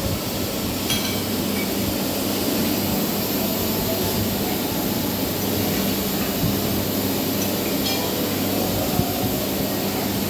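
Steady mechanical drone with a low hum, with a couple of faint clicks.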